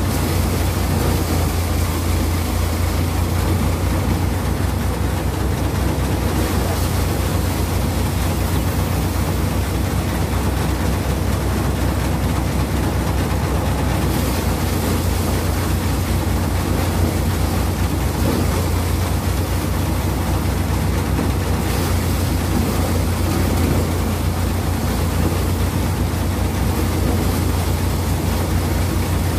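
Five-fan Dasmesh paddy thresher running under load, driven by a tractor, with rice straw being fed into its threshing drum by hand: a steady low hum with a fast pulse and a rushing noise from the drum and fans.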